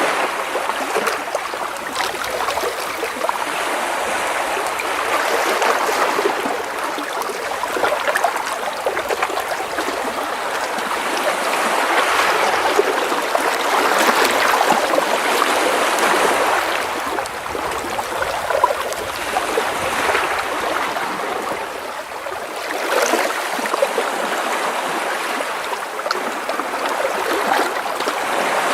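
Small sea waves washing and splashing against rocks close by, a steady wash of water that swells and eases every few seconds, with trickling as water drains back between the stones.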